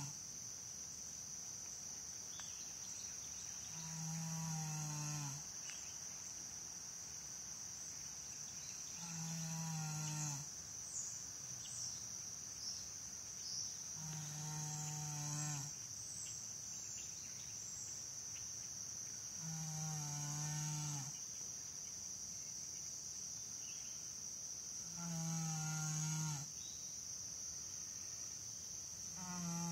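American Saddlebred horse snoring in its sleep: a low, drawn-out pitched snore about every five seconds, each lasting about a second and a half and dropping in pitch at its end. A steady high-pitched insect chorus runs underneath.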